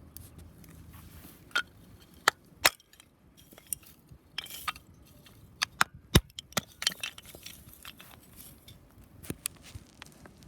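Irregular sharp clicks and knocks of hard objects being handled, about nine in all, the loudest a little after six seconds in.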